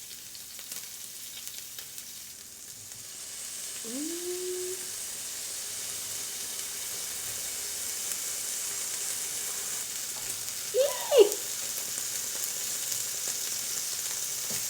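Meat sizzling on a portable tabletop grill pan, a steady hiss that grows louder about three seconds in and holds. A short voiced murmur comes about four seconds in and another brief vocal sound near eleven seconds.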